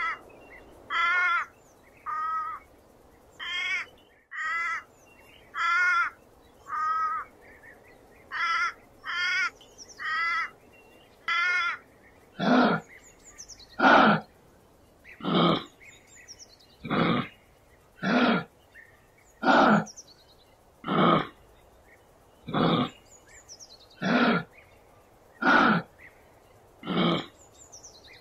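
Animal calls repeated at a steady pace: first short, wavering high-pitched calls about once a second, then, from about twelve seconds in, louder and harsher calls about every second and a half.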